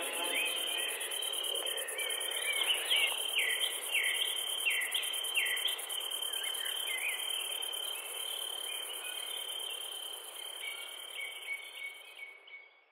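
Insects buzzing steadily in a high, fine trill, with a run of short falling chirps over it; the whole sound fades out near the end.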